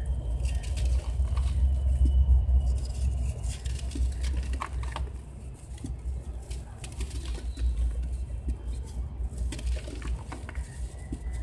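Soft sand-cement chunks crumbled and squeezed by hand in a basin of shallow water: wet crumbling with small splashes and scattered sharp little plops of bits falling in, over a steady low rumble.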